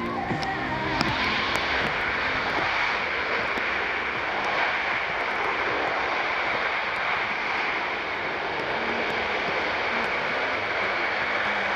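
Boeing C-17 Globemaster III's four turbofan engines running at high power in reverse thrust, a loud, steady rush of jet noise with a hissing edge that swells about a second in.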